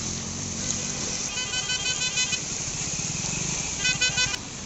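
A vehicle horn sounding in rapid beeps, about eight a second, in two runs, over the steady rush and splash of floodwater and the low running of motorcycle engines.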